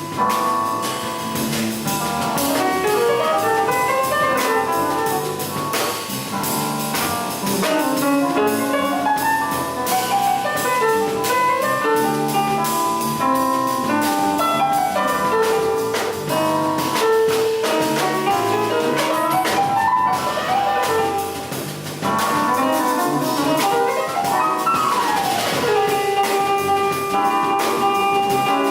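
Jazz piano trio playing: fast runs of notes climbing and falling over drum kit and cymbals, ending on a held chord.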